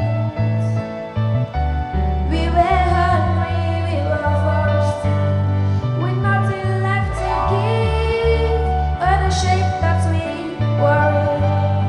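A girl sings a slow gospel solo over an instrumental backing with a steady bass line; her voice comes in about two seconds in.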